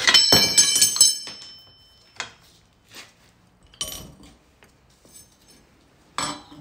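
Metal tools and bike parts clinking and clattering as they are handled, with a burst of ringing metallic clinks at the start, then a few single clicks and knocks spaced over the next few seconds.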